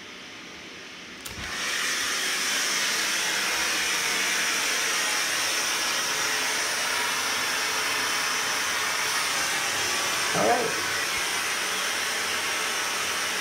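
Steam hissing steadily from the outlet head of a steam shower fed by a Kohler K9 steam generator, starting suddenly after a click about a second in. It is the sign that the repaired generator is working again and making steam.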